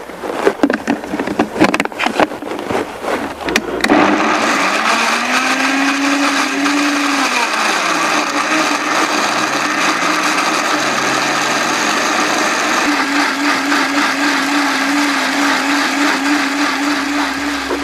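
Clicks and knocks as the lid goes onto a countertop blender, then about four seconds in the blender motor starts and runs, blending frozen banana chunks and frozen red currants. Its pitch rises, sags briefly as the load shifts, then holds steady.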